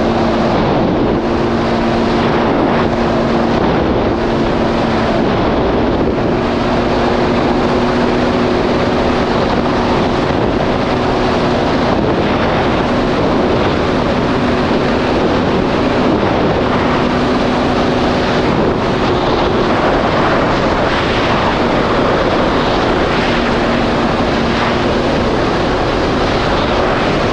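Supercharged Yamaha GP1800R SVHO jet ski engine running steadily at speed, a constant drone holding an even pitch. Wind rushes over the microphone and water hisses under the hull.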